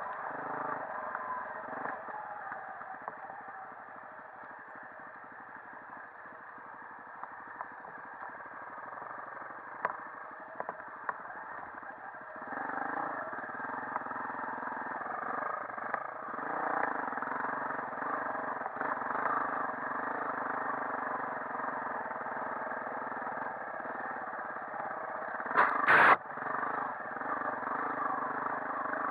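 Dirt bike engine running along a rough trail, heard from on the bike, with the rattle of the ride over the ground. It is quieter for the first few seconds and gets louder past the middle. One brief, loud knock comes near the end.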